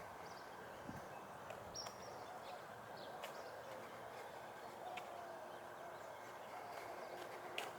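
Faint forest ambience with scattered light footsteps on the trail and a short, high bird note about two seconds in.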